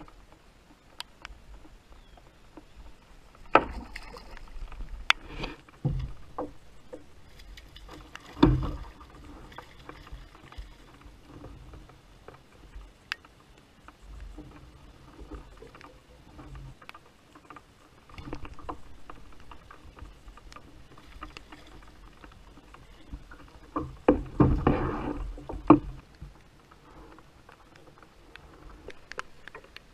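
Scattered knocks, clicks and rustling of handling aboard a plastic kayak, with a few louder thumps and a busier run of bumps about three-quarters of the way through.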